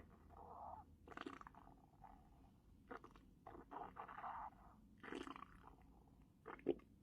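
Human stomach gurgling and growling in quiet, irregular bursts, with a short sharp sound near the end.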